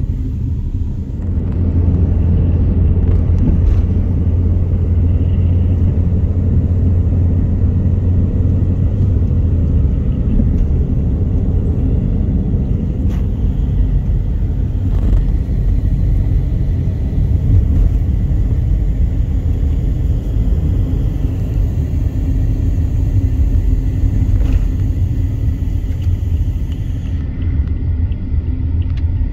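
Steady low rumble of a Boeing 787-9 airliner's engines and airflow heard inside the cabin. It grows louder about a second in, then holds level, with a few faint clicks.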